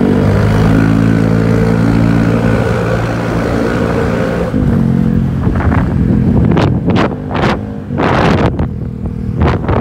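Honda Vario 125 scooter's single-cylinder engine through a CLD C1 aftermarket exhaust, running steadily at a low cruising speed. In the second half, several short rushes of wind noise.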